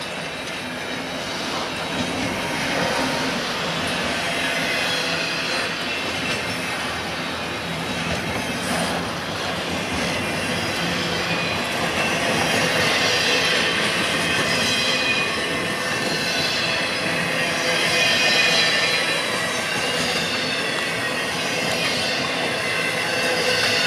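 BNSF diesel freight train passing close by: the locomotives' engines at first, then double-stack container cars and trailer flatcars rolling past with a steady rumble of wheels on rail and a high squealing from the wheels.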